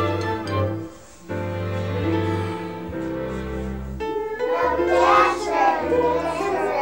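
Recorded instrumental backing music for a children's song, with a brief dip about a second in; a group of young children starts singing along about four seconds in.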